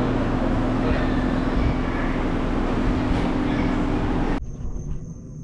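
Steady, loud mechanical running noise with a constant hum, which cuts off suddenly about four and a half seconds in.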